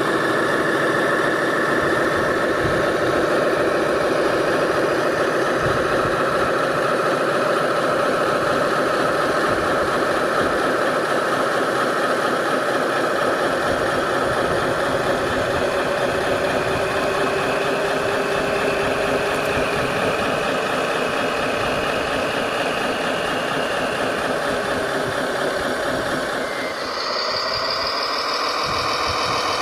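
Radio-controlled model construction machine running with a steady, engine-like drone. Near the end the pitch breaks and then climbs.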